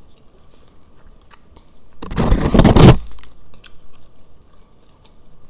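Close-up chewing and biting into an Impossible Whopper burger, with a loud crunching stretch of about a second around two seconds in.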